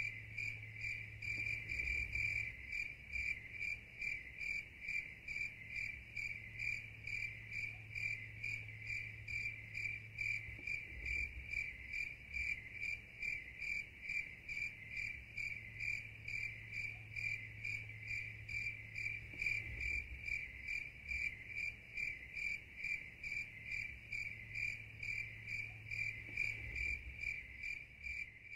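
An insect chirping steadily at one high pitch, about three chirps a second in an even rhythm, with a low hum coming and going underneath.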